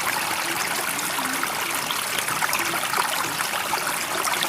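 Steady running water, a continuous trickling flow with many small splashes.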